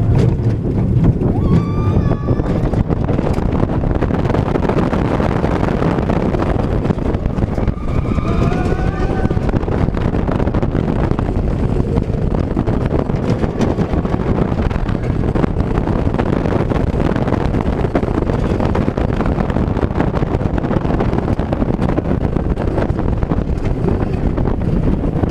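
Rocky Mountain Construction wooden roller coaster train at full speed: a loud, steady rush of wind on the microphone over the rumble of the train on the track. Riders yell briefly about two seconds in and again about eight seconds in.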